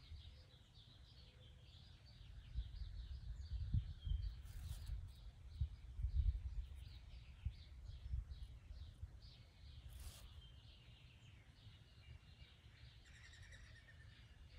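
Small birds chirping in the background, many short quick calls one after another, over a low uneven rumble. Two brief hisses come about four and a half and ten seconds in.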